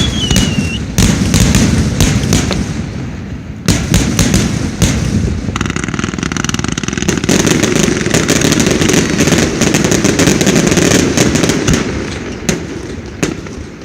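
Fireworks finale: a dense barrage of shells bursting in rapid succession, with booming reports and crackle. A whistle falls in pitch in the first second.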